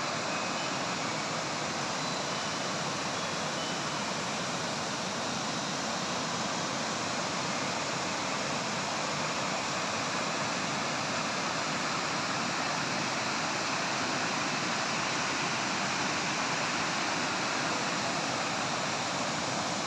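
Water pouring over the crest of a rubber dam and spilling down its face: a steady, even rushing noise.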